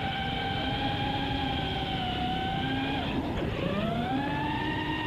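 FPV racing quadcopter's brushless motors and new folding propellers whining in flight, heard from the onboard camera with wind rumble underneath. About three seconds in the throttle is chopped, so the whine drops in pitch, then is punched back up to a higher, rising whine.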